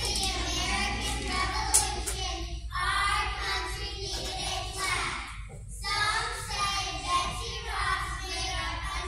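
A large group of young first-grade children singing together as a choir, in phrases with short breaks between them, over a steady low hum. A brief sharp click about two seconds in.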